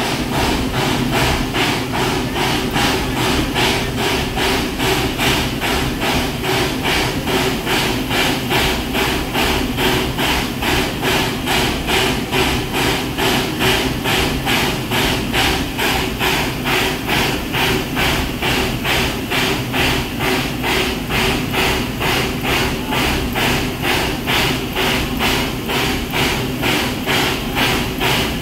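Propane-fired 1973 Crown Metal Products 4-4-0 steam locomotive standing with a steady, even thumping of about two to three beats a second over a hiss.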